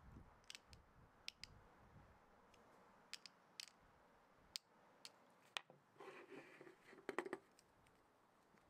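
Faint, scattered metal clicks and small scrapes as a steel pick is worked into the seam around the cover plate of a vintage S-K 1/4-inch drive ratchet head, with a short, busier run of clicks and handling rustle about six to seven seconds in.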